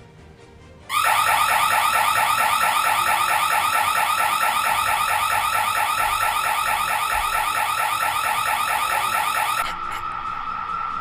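Electronic house alarm siren going off suddenly about a second in, a loud, rapid, high warble that keeps sounding. Near the end its upper tones drop out and it gets a little quieter.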